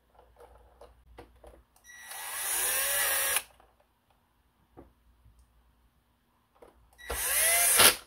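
Cordless electric screwdriver running in two bursts, the first about a second and a half long and the second just under a second near the end, its motor pitch shifting as it drives screws into the plastic base of a robot vacuum. Small clicks of handling come between the bursts.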